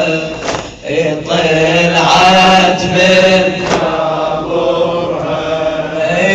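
Shia latmiya mourning chant: voices singing long, wavering held notes, with sharp slaps of hands beating on chests about every one and a half seconds.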